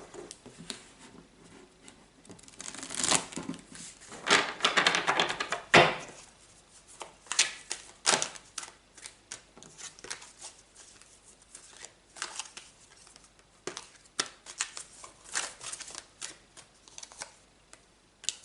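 Tarot cards being shuffled and handled: several louder bursts of riffling and snapping in the first few seconds, then lighter scattered flicks and taps.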